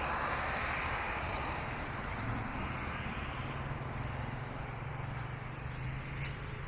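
Street traffic: the noise of a passing vehicle fades away at the start, then a low, steady engine hum holds until near the end.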